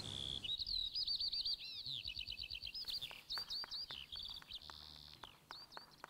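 Recorded birdsong from the dance's backing track: a rapid, varied run of high chirps and trills that thins out and fades toward the end.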